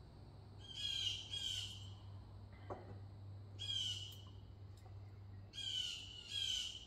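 A wild bird calling: five short calls, a pair, a single one, then another pair, each about two seconds apart.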